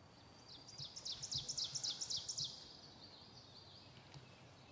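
A songbird singing: a quick run of about ten high, down-slurred notes, roughly five a second, trailing off into a softer trill.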